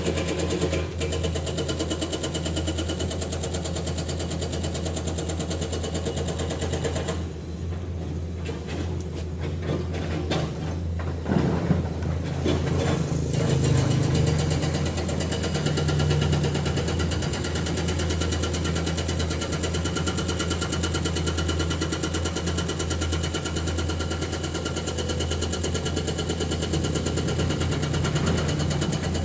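Heavy diesel engine running steadily at idle, with a few sharp knocks about 8 to 12 seconds in, the loudest near the middle.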